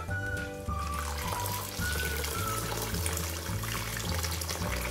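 Water pouring from a plastic jug into a steel bowl of rice and lentils, a steady splashing hiss that begins shortly after the start, over background music.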